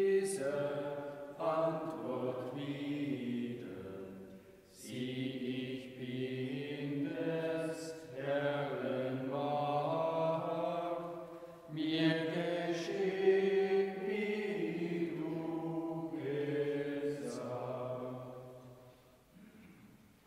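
Hymn singing in church: voices hold slow, long notes in three phrases, the last fading out near the end.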